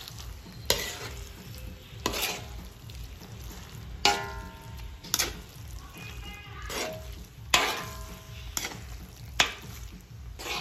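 Metal spoon scraping and clanking against a large aluminium wok while spaghetti in red sauce is stirred and tossed, a stroke about every second, some strokes ringing briefly.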